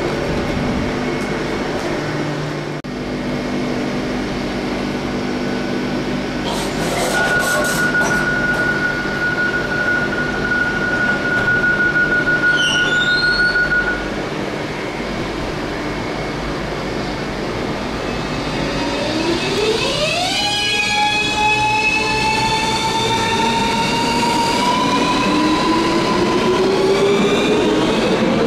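Electric train running with a continuous rumble. A steady high-pitched tone holds for several seconds in the middle. About two-thirds of the way in, the traction motors start a whine of several tones that rises in pitch and then levels off as the train pulls away and gathers speed.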